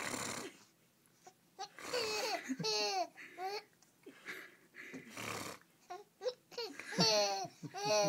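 An infant laughing and babbling in short high-pitched squeals and breathy bursts, with brief pauses between them.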